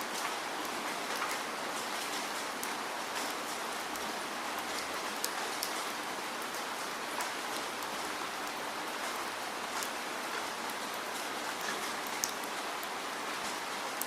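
Steady rain, an even hiss with many small sharp drop ticks scattered through it.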